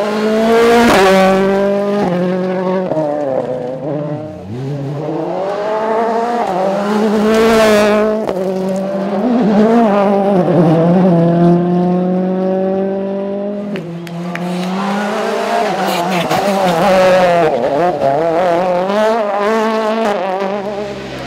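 Rally car engines at full throttle on a stage, the engine note climbing and dropping again and again through gear changes and lifts, loudest as they come closest.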